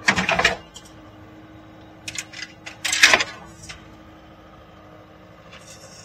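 Metal clanking and scraping in three short bursts, near the start, about two seconds in and about three seconds in, as a skid steer's bucket hoists an engine out of a truck's frame, over the steady hum of the skid steer's engine.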